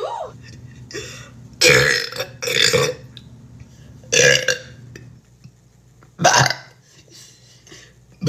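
A woman burping loudly four times, each burp about half a second long, the first two in quick succession.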